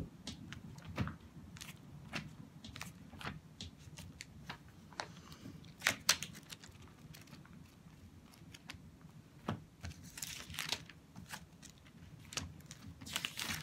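Book pages rustling and being turned: scattered light clicks and crinkles, with a longer run of rustling about ten seconds in.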